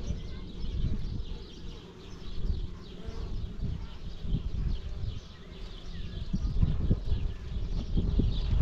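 Honeybees buzzing over an open hive box, with an uneven low rumble underneath.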